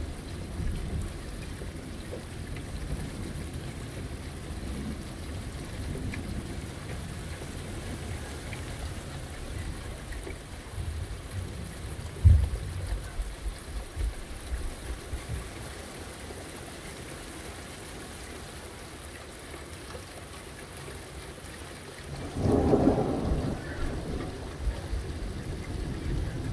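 Thunderstorm: heavy rain falling steadily, with rolls of thunder. A rumble fades away in the first seconds and another comes about ten to fourteen seconds in, sharpest around twelve seconds. A louder rushing surge follows near the end.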